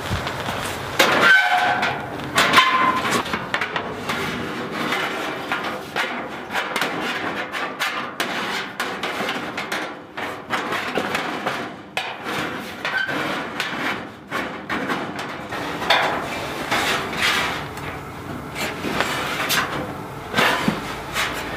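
Galvanized sheet-metal panel clanking and rattling against a steel chicken nesting box as it is fitted back into place, with repeated knocks throughout and a brief metallic ringing about one to three seconds in.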